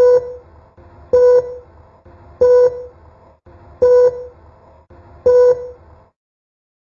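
Oticon Streamer Pro sounding a repeated electronic beep: five short beeps of one pitch, evenly spaced a little over a second apart over a faint low hum, stopping about six seconds in.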